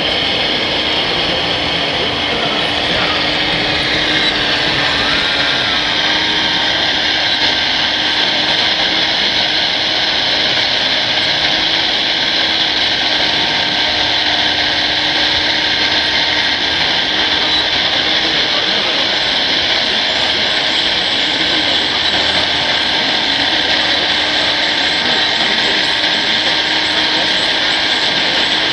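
Electric motors and gearboxes of RC model trucks whirring steadily, with background chatter.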